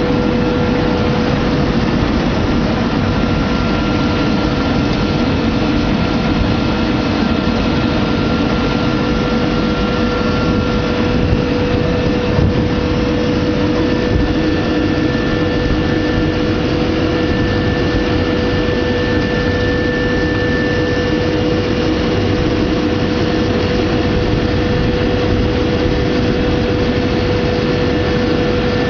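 Industrial fruit and vegetable washing machine running: a loud, steady mechanical drone with a constant hum.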